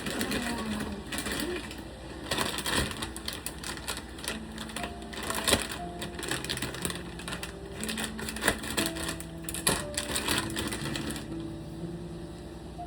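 Rapid, irregular clicking and rattling from hands-on kitchen work with the palabok mix, stopping about eleven seconds in. Faint background music with held notes plays underneath.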